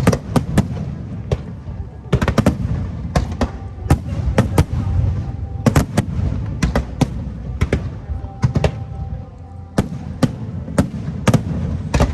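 Aerial fireworks bursting in quick, irregular volleys of sharp bangs, over a continuous low rumble.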